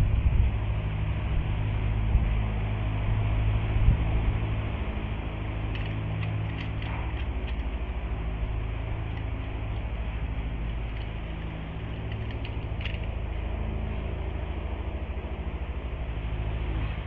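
A steady low mechanical hum with a fine pulsing to it, with a few faint high ticks about six seconds in and again near thirteen seconds.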